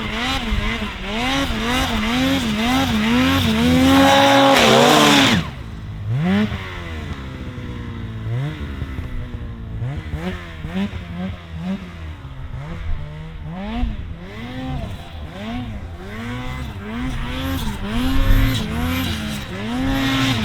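Snowmobile engine revving up and down over and over as the throttle is worked while riding. It is loud for the first five seconds, drops away suddenly, then keeps rising and falling more quietly.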